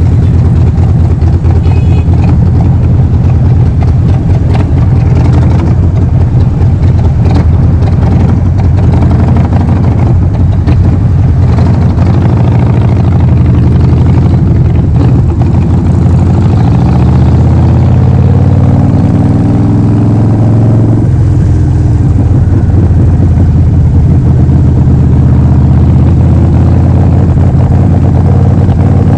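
Harley-Davidson Forty-Eight XL1200X's 1200 cc air-cooled V-twin running loud through a Vance & Hines full exhaust system. Its pitch shifts about halfway through and again a few seconds later as engine speed changes.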